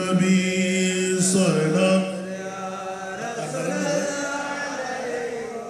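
A man's solo voice chanting an Urdu naat into microphones. He holds one long note for about two seconds, then drops to a quieter melodic line that moves up and down in pitch.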